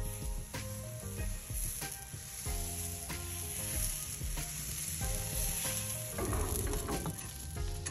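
Dosa batter sizzling on a hot griddle while the back of a ladle spreads it outward in circles, with a steady high hiss.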